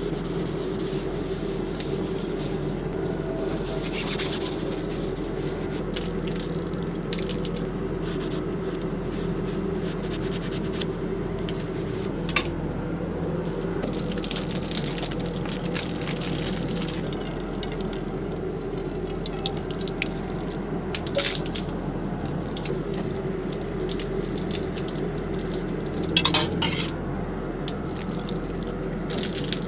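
Water trickling from the tap of a plastic jerrycan and splashing onto the pavement while soapy hands are rubbed and rinsed and a plate is washed under the stream, with scattered small clinks and a brief clatter near the end. A steady low hum runs underneath.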